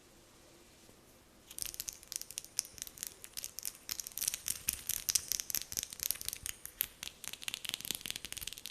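Fingernails tapping lightly and quickly on a hand: a dense, uneven run of crisp clicks that starts about a second and a half in.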